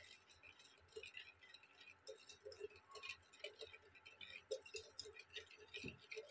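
Wire whisk beating sugar into an egg-and-cream cake batter in a stainless steel bowl: faint, quick, irregular clicking and rattling of the wires against the bowl.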